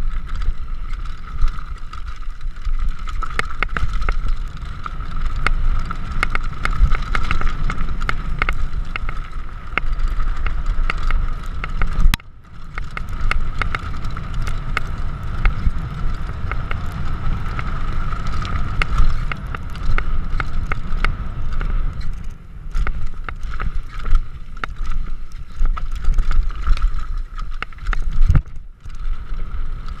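Downhill mountain bike ridden fast over a dirt trail, heard from a camera mounted on the bike. Wind rumbles on the microphone, a steady high buzz runs throughout, and there are frequent sharp clicks and rattles as the bike runs over rough ground. The noise drops out briefly about twelve seconds in.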